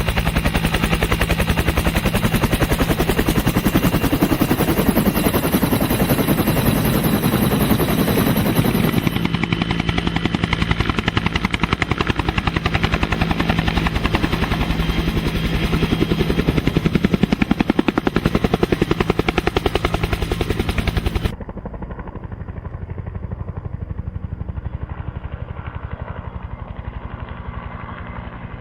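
Helicopter running, its rotor beating in a fast, even pulse over a steady engine hum. About 21 seconds in the sound drops abruptly to a quieter, duller version of the same beat.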